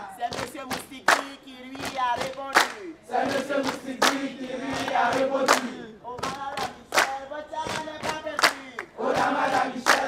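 A group of young people singing a chant-like song together while clapping in a steady rhythm, about three claps a second.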